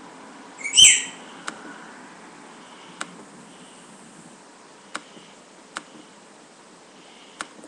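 A short, loud squeak-like chirp about a second in, then sharp single clicks every one to two seconds, five in all, over a low hiss with a faint high tone that comes and goes.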